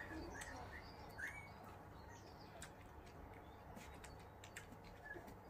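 Faint, short, high-pitched squeaks from two-week-old Finnish Lapphund puppies: several in the first second and a half, and one near the end. Scattered soft clicks come in between.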